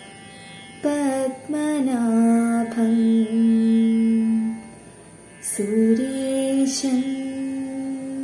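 A young woman singing a devotional prayer solo, unaccompanied, in slow, long-held notes. The first phrase begins about a second in with a pitch sliding downward, and a second phrase follows after a short pause.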